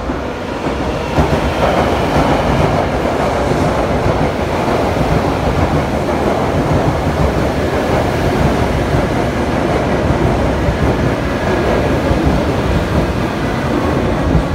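A Shinkansen train running along the platform track, a loud, steady rush of wheel and running noise that builds over the first second or so and then holds.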